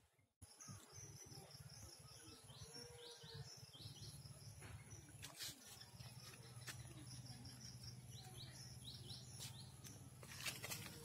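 Faint outdoor ambience with a small bird chirping in two runs of quick, short, high notes over a low steady hum.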